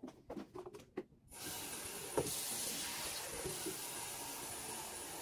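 Tap water running into a stainless-steel electric kettle, a steady rushing hiss that starts about a second in, after a few light clicks of the kettle being handled. One short knock a little later.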